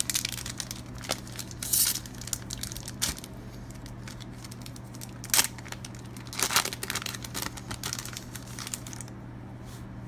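Foil Pokémon TCG booster pack wrapper being torn open and crinkled, irregular crackling rustles with a few sharper, louder tears, quieting near the end.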